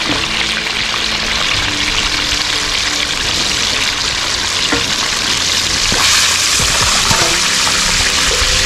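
Flour-dusted chicken wings deep-frying in a wide pot of hot oil: a loud, steady sizzle and crackle of bubbling oil.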